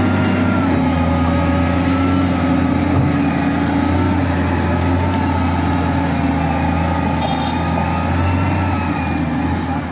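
Bulldozer's heavy diesel engine running steadily at work: a deep, even drone with a high whine above it that drifts slowly up and down in pitch.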